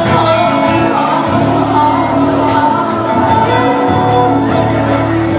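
Live band performing a song, with voices holding notes over a steady bass line.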